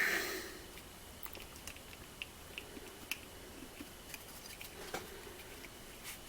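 Faint, scattered small clicks and taps of a blower motor resistor and test probes being handled on a workbench, as the resistor is readied for a continuity test.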